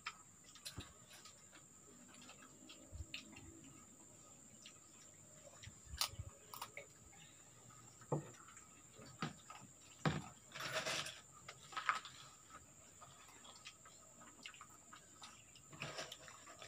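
Faint scattered clinks and taps of spoons, plates and bowls during a meal, with a short scraping rustle a little past halfway. A steady high-pitched hum sits underneath.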